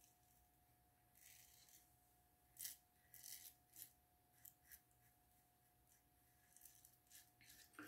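Short, faint scrapes of a double-edge safety razor cutting lathered stubble on the neck, a series of irregular strokes.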